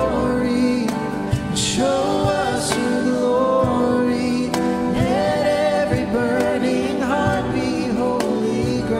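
Church worship band playing a praise song with singing.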